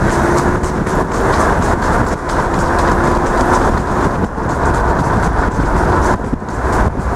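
Steady wind buffeting on the microphone and road noise from a moving car on a wet road, with a regular clatter of trotting hooves on tarmac through the first few seconds.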